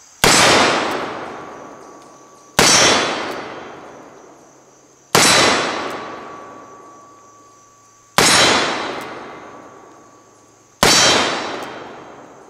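Five shots from a Colt Single Action Army revolver in .45 Colt, fired slow and deliberate about two and a half seconds apart, each echoing away among the trees. A faint ring from the steel targets follows some of the shots.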